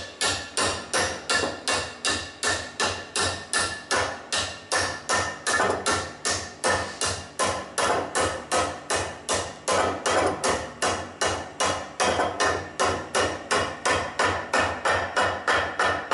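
Steady hammer blows, about three a second, driving a glued replacement metal ring into the bore of an electric motor's bearing housing. The tone of the strikes tells the ring's progress: it changes to a more metallic sound once the ring bottoms out in the housing.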